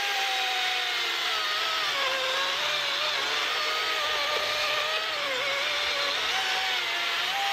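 DeWalt 60 V brushless battery chainsaw cutting through a log: a steady motor-and-chain whine that drops in pitch under load about a second in, then rises again near the end as the chain cuts free.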